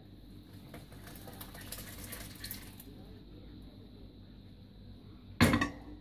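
Curds and whey pouring and splashing out of a tipped stainless steel pot for about two seconds. Near the end comes a single loud metal clank from the steel pot.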